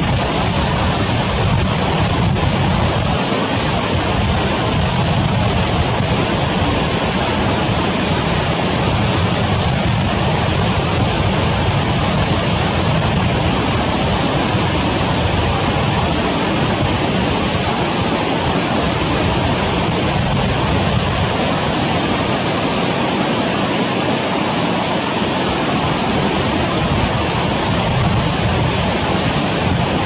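Fast-flowing stream rushing and splashing over boulders: a loud, steady rush of white water.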